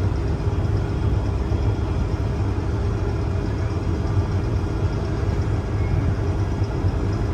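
Case IH 2388 combine's diesel engine and machinery running with a steady drone, holding an even pitch.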